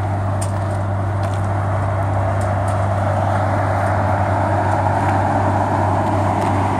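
Inland cargo barge's diesel engine running under power for a turning manoeuvre close by: a steady deep hum under a broad even rush.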